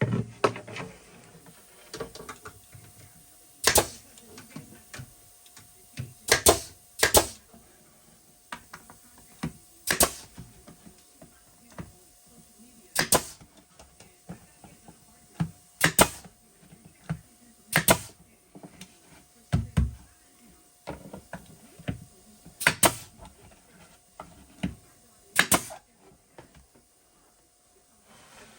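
Irregular sharp knocks and clicks from hand work on a wooden cabinet carcass, about a dozen loud ones a few seconds apart with fainter taps between.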